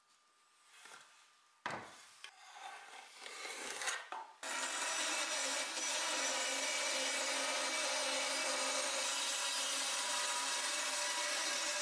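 A few light scrapes and knocks on wood. Then, from about four seconds in, a benchtop bandsaw runs steadily, cutting a curved rocker shape out of a pine board.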